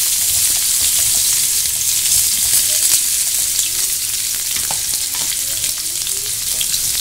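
Freshly added spiny gourd pieces sizzling in hot mustard oil with cumin seeds in a nonstick frying pan: a loud, steady hiss with small scattered crackles.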